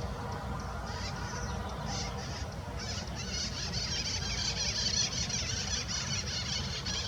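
Steady rumble of road traffic from a nearby ring highway, with a rapid, high chirping layered over it.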